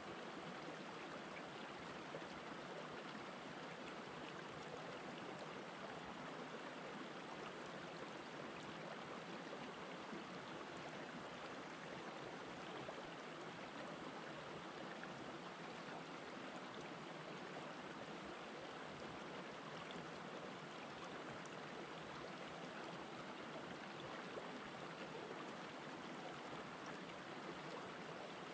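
Shallow rocky stream flowing among boulders: a steady, even wash of water.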